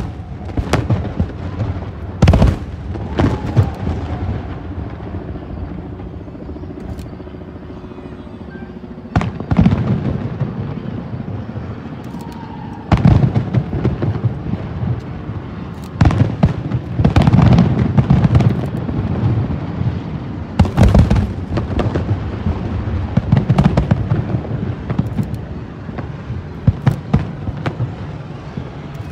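Aerial fireworks shells bursting in a long barrage: repeated sharp booms, some single and some in rapid clusters, with a continuous low rumble of echoing reports between them.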